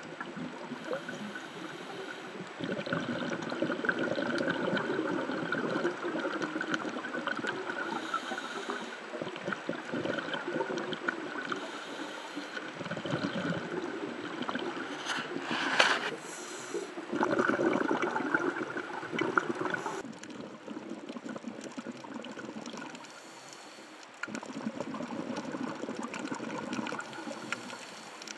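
Scuba diver's regulator breathing heard underwater through the camera housing, with exhaled bubbles gurgling and rushing past in stretches that rise and fall every few seconds.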